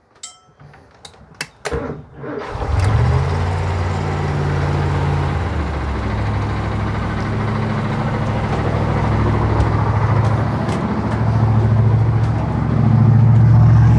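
One of the boat's original 1978 Crusader 454 big-block V8 marine engines starting. After a few clicks, the engine catches about two and a half seconds in. It runs higher for a couple of seconds, then settles into a steady idle, a little louder near the end.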